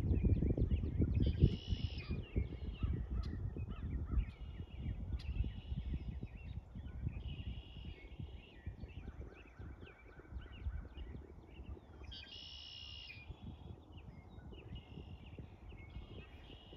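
Birds calling: many short chirps and several harsh calls, the loudest about a second and a half in and again about twelve and a half seconds in. A low rumble underneath dies away over the first few seconds.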